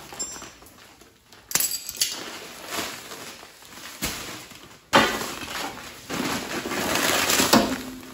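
Sacks of sand being handled and set down: a sharp knock about 1.5 s in, then from about 5 s a loud stretch of rustling and crunching plastic sacks with thumps and clinks.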